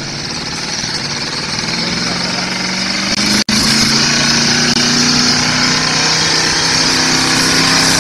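1985 GMC pickup's engine revving hard under load as it drags a truck-pull sled, its pitch climbing over the first few seconds and then holding high while it grows louder. The sound cuts out for an instant about three and a half seconds in.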